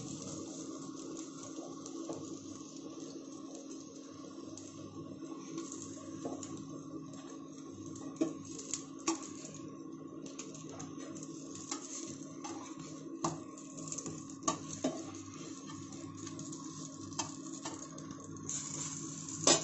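A steel spatula scraping and clinking against a nonstick frying pan as fried potato tikkis are lifted out, in scattered knocks over a light sizzle of oil. Under it runs a steady hum from the induction cooktop.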